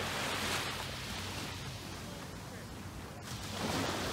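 Small waves washing onto a sandy shore, the wash swelling about half a second in and again near the end.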